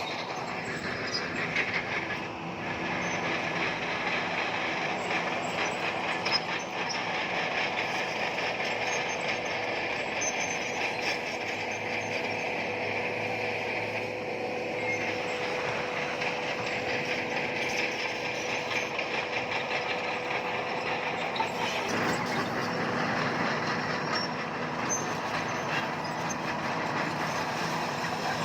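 Crawler bulldozer working: its diesel engine running steadily under load while the steel tracks clank and rattle.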